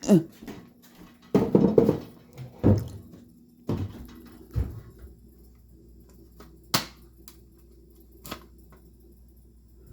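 Thumps, knocks and rattles of a ceiling smoke alarm being reached from a makeshift step and handled as it is taken down. Later come two short, sharp clicks about a second and a half apart.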